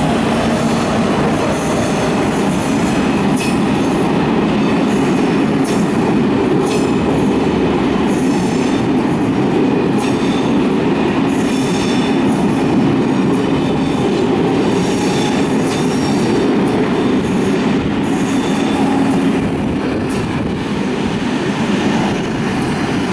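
Corail Téoz passenger coaches rolling past behind a BB 22200 electric locomotive as the train arrives at a station: a steady rumble of wheels on rail, with repeated sharp clicks as the wheels cross rail joints.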